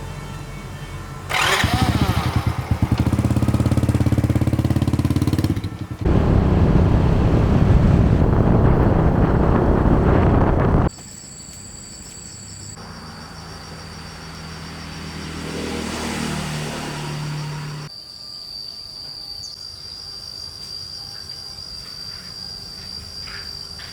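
Farm truck engine running in two loud stretches of about four and five seconds, each cut off suddenly. A quieter steady hum with a thin high whine follows.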